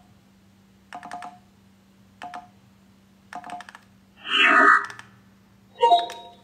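Three short bursts of rapid clicking, a little over a second apart, over a steady low hum. A short, loud voice-like sound comes about four and a half seconds in, and a brief tonal sound near the end.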